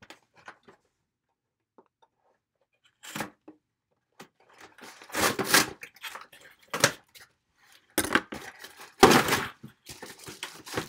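Cardboard and paper packaging being torn open, in a series of short rips and rustles. The loudest tearing comes about halfway through and twice more near the end.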